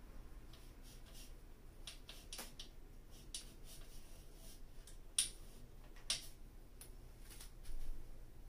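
A cloth rag rubbing and rustling against a bicycle's rear derailleur and chain, with scattered light clicks of the metal parts. There are a few sharper clicks about five and six seconds in, and a short, louder spell of rubbing near the end.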